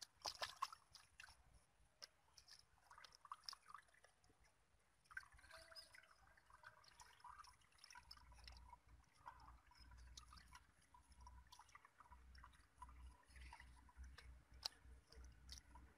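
Faint wet squelching and dripping as hands pat and smooth mud around PVC pipes in shallow water. There are scattered small clicks and splashes, a cluster of louder ones just after the start and a single sharp one near the end.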